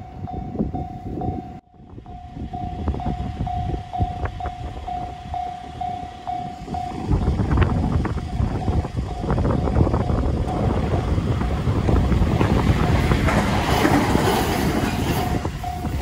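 Japanese level-crossing alarm bell ringing in a steady repeating ding, about twice a second. From about seven seconds in, a 521 series electric train runs past over the crossing with a loud rumble and wheel clatter that drowns the bell, which is heard clearly again near the end.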